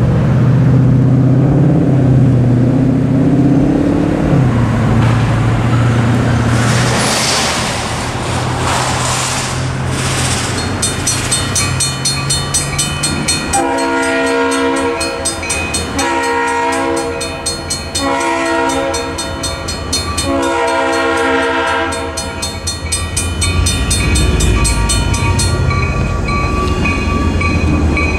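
Mechanical crossing bell striking rapidly once the crossing activates, about eleven seconds in, while an approaching EMD diesel locomotive sounds its horn in four long blasts for the crossing. A low diesel engine rumble runs underneath and grows near the end.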